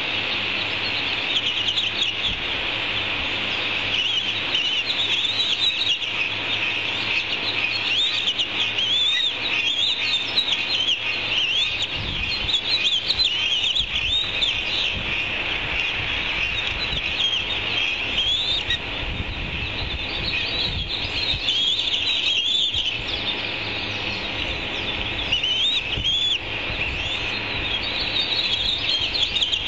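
Osprey chicks chirping: a continuous string of short, high chirps, typical of begging at feeding time, with spells of low rumbling partway through.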